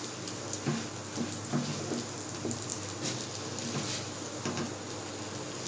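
A slice of bread frying in desi ghee and sugar in a nonstick pan over a very low flame: a gentle sizzle with scattered small crackles, and a few soft touches of a silicone spatula as the slice is turned about.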